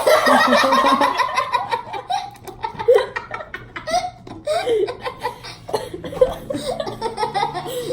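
Kids laughing, loudest in a burst at the start, then breaking into scattered giggles.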